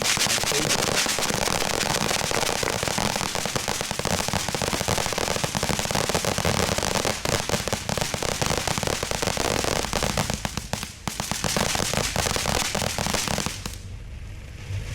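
Consumer firework giving off a dense, rapid stream of crackles that starts suddenly, eases briefly about 11 seconds in, and dies away about a second before the end.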